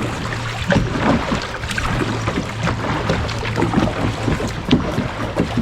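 Sea water splashing and lapping around a kayak inside a sea cave, with paddle dips: many small irregular splashes and drips, over a low steady hum.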